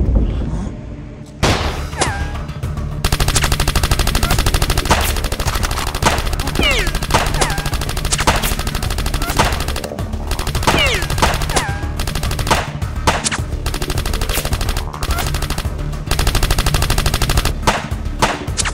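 Rapid, dense gunfire-like shots over background music with a steady bass, becoming continuous about three seconds in, with a few short pitch sweeps along the way.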